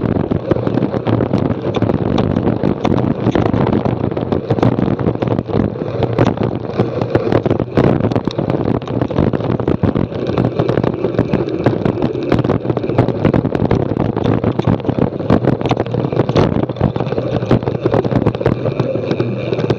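Mountain bike descending a rough dirt track at speed: wind buffets the camera microphone over the crunch of tyres on loose gravel, with constant rattling knocks as the bike jolts over bumps.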